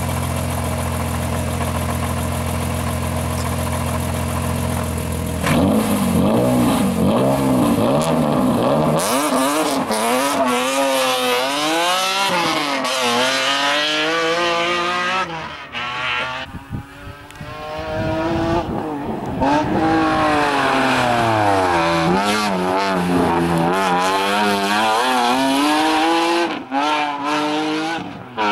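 BMW 3 Series (E36) hillclimb race car's engine idling steadily, then launching about five seconds in and accelerating hard up the course. It revs up and shifts through the gears again and again, the note climbing and dropping with each shift, with a quieter stretch partway through before it revs hard again.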